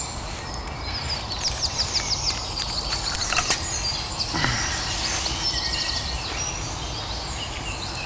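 Woodland ambience: small birds chirping in short quick series over a steady low background noise, with one sharp click about three and a half seconds in.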